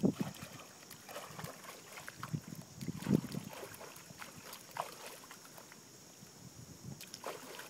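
A dog pawing and slapping at pool water from the edge, making irregular small splashes as it reaches for a floating tennis ball.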